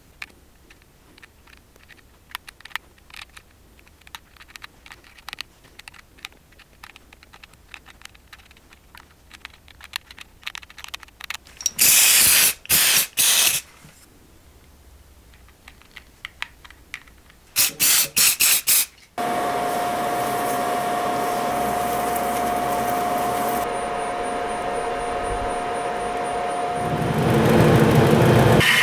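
Faint scattered clicks while glue is worked onto the cork, then two sets of short, loud spray bursts a few seconds apart, typical of an aerosol superglue accelerator. About two-thirds of the way in, a wood lathe starts and runs steadily with a constant whine, growing louder near the end.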